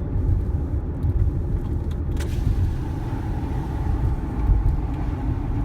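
Steady low rumble of strong wind and road vehicle noise, gusting unevenly, with a faint steady hum joining about two seconds in.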